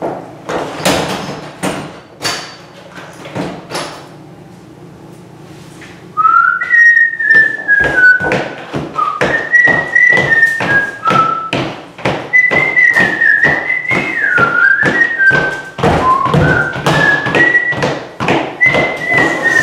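Scattered sharp taps and knocks, then about six seconds in a person starts whistling a wandering tune over a steady beat of sharp taps, about two a second.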